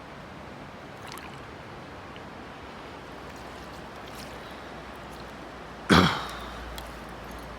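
Steady rush of a flowing trout stream, with one sudden loud burst of noise about six seconds in that dies away within half a second.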